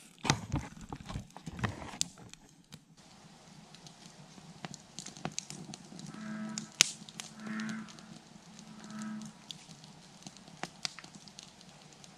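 A few sharp clicks and knocks, then an American bullfrog calls three times in a row, deep short croaks a little over a second apart.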